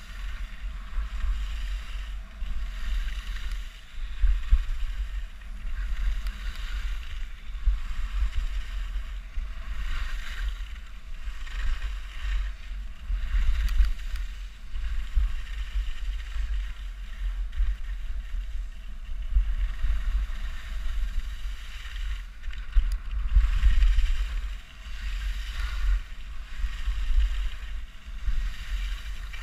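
Wind rumbling on the microphone of a skier moving downhill, with the hiss of skis carving on groomed snow swelling and fading with each turn.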